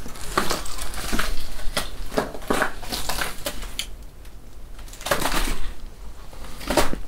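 Rusty steel bunker door being pulled open, with a run of irregular knocks, scrapes and crunches; a cluster of louder scraping about five seconds in and another near the end.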